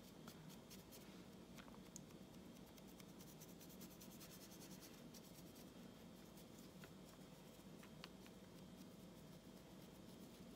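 Faint, rapid scratching of a nearly dry paintbrush flicked lightly over a miniature's raised edges while dry brushing a highlight, over a faint steady hum.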